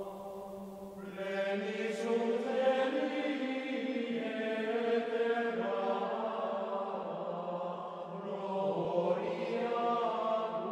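Chant-style choral music, voices holding long notes that change every second or so.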